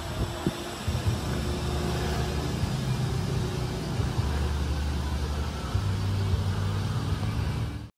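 Steady low rumble of background noise with a few soft knocks in the first second, cutting off suddenly just before the end.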